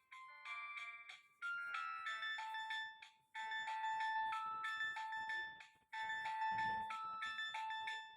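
Nokia 1265 mobile phone playing one of its ringtones: an electronic melody of clear beeping notes, with a short phrase repeating every two to three seconds and brief gaps between phrases.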